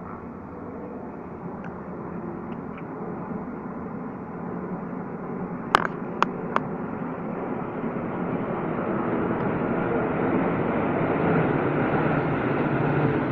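Military aircraft flying over, their engine noise growing steadily louder as they approach. Three sharp clicks about six seconds in.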